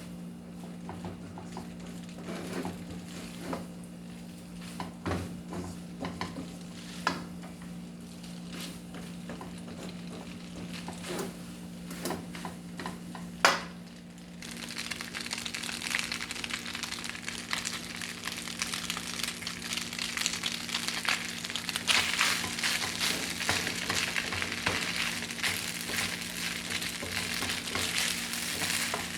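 Food frying in a pan while a utensil stirs it, with scattered knocks and clicks against the pan over a steady low hum. About halfway through a much louder sizzling starts suddenly and builds.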